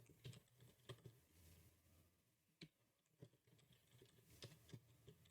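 Faint computer keyboard typing: a handful of scattered, irregular keystrokes over near silence.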